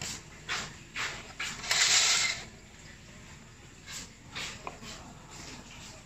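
Kitchen knife cutting through a block of freshly pressed tofu, each stroke ending in a soft tap on the wooden board beneath, several strokes about half a second apart. About two seconds in there is a louder burst of noise, under a second long.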